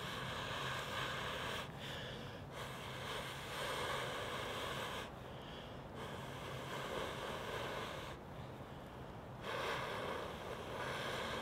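Long, slow breaths blown into a smouldering bundle of damp grass and char cloth to coax the ember into flame: about four long blows with short pauses between them.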